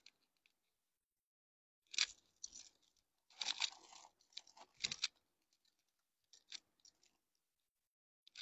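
Close handling noises as someone moves things about by hand: a few short rustles and crunches, the loudest about two seconds in and again from about three and a half to five seconds in, with scattered light clicks between.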